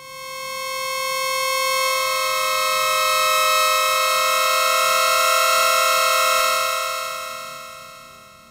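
Web synthesizer playing a bright pad from two slightly detuned sawtooth oscillators an octave apart, with the filter wide open. One note swells in, a second, higher note joins about a second and a half in, and the held pair then decays out slowly over the last two seconds.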